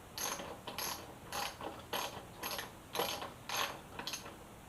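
Ratchet wrench clicking in short, even back-and-forth strokes, about two a second, tightening the headlight mounting bolts.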